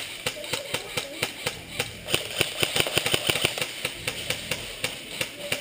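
Airsoft gunfire: sharp, irregular snapping shots, several a second, with BB strikes among them.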